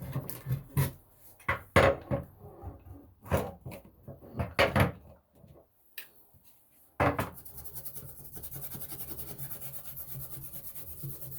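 Hard parts being handled and knocked together, with several sharp clunks and rubbing over the first five seconds. About seven seconds in, a steady fast-fluttering hiss starts suddenly and runs for about four seconds.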